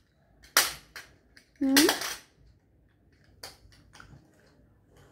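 Two short, sharp knocks about a second apart, then a few light clicks: hard plastic toys being handled and knocked on a tile floor.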